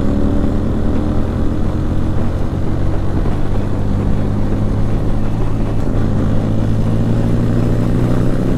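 Motorcycle engine running at highway cruising speed, with a steady hum of wind and road noise. The engine note rises a little about six seconds in.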